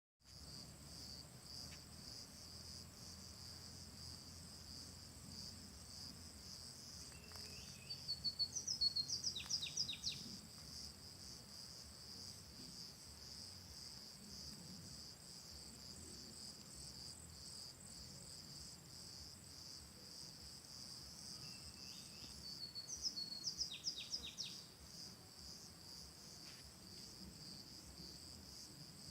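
Insects trilling steadily in a high, fast-pulsing drone, with a songbird singing a short rapid phrase twice, about eight seconds in and again near twenty-two seconds.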